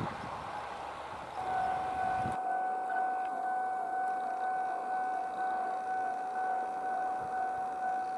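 A steady, high electronic warning tone starts about a second and a half in and keeps sounding at one pitch over faint background noise.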